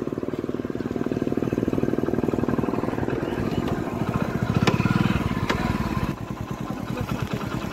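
Small motorcycle's engine running steadily on the move, then dropping to a slower idle about six seconds in.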